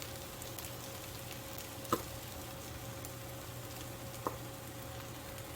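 Stir-fry of cabbage, celery, tomato and egg sizzling gently in a frying pan over low heat, with two short sharp clicks, about two seconds and four seconds in.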